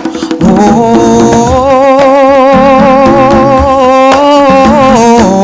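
Song: a sung, held 'oh' with vibrato, the pitch stepping between notes, over a backing track with a beat.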